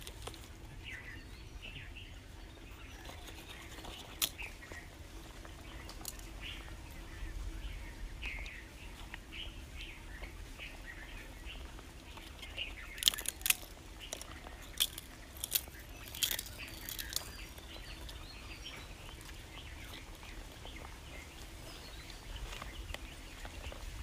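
Small birds chirping intermittently in the background, with a run of sharp clicks or taps about halfway through.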